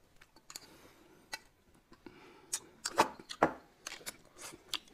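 Eating sounds: a scatter of short sharp clicks and crunches from biting and chewing food, the loudest two about three seconds in.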